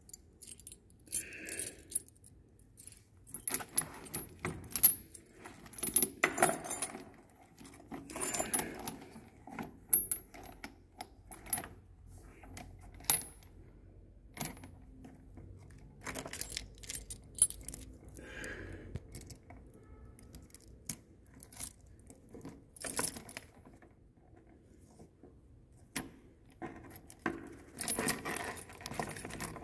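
Heavy steel security chain and padlock being handled and pulled free, with irregular clusters of metallic clinks and rattles between short pauses.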